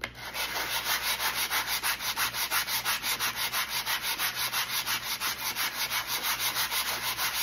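Light hand sanding of wooden craft rails: quick, even back-and-forth rubbing strokes, about five a second.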